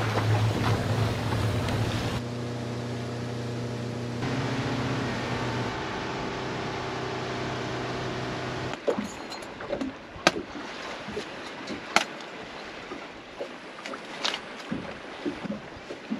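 Motorboat engine running steadily under way, with wind and water rushing past the hull. About nine seconds in it gives way to a quieter stretch broken by several sharp knocks.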